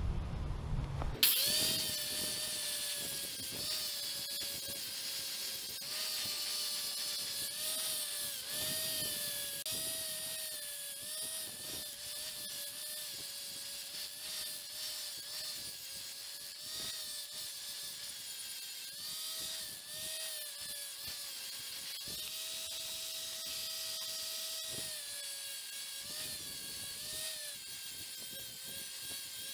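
An angle grinder fitted with a flap disc starts about a second in and runs, grinding the edge of a steel circular saw blade. Its motor whine dips in pitch and recovers again and again as the disc bites into the metal, over a steady high grinding hiss.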